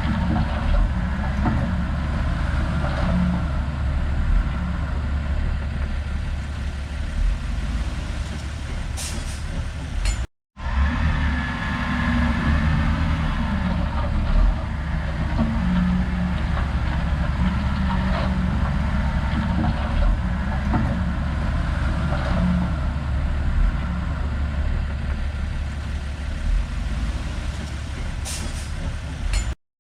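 A heavy diesel machine's engine running steadily under work, with a deep low drone. It cuts out for an instant about ten seconds in and again near the end.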